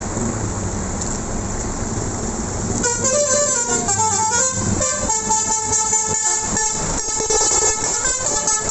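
Bus engine and road noise, then about three seconds in a PO Basuri bus's 'telolet' multi-tone horn starts playing a quick tune of several notes stepping up and down in pitch.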